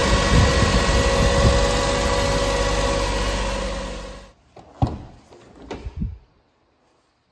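1997 Mitsubishi Minicab truck's small three-cylinder engine idling steadily, then dropping away quickly after about four seconds. A few short knocks follow before it goes quiet.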